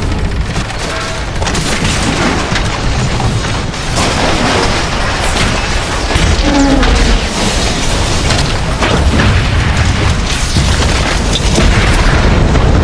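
Sound-effect recreation of the Titanic's hull breaking apart: a loud, continuous deep rumble full of sharp cracks and booms, with a short pitched metal groan about halfway through.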